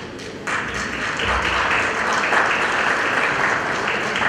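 Audience applauding, the clapping starting about half a second in.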